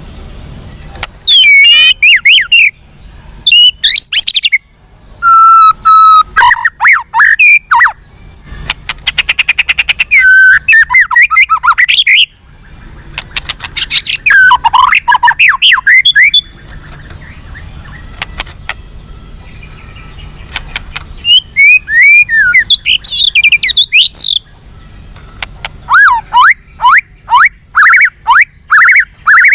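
White-rumped shama (murai batu) singing: bursts of very loud, fast, varied whistled phrases broken by short pauses, with a rapid trill about a third of the way in.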